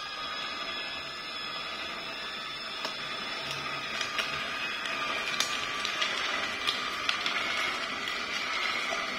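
Vertical slow (auger) juicer running with a steady motor hum. From about three seconds in come sharp snaps and crunches as carrot sticks are pushed down the feed chute and crushed by the auger.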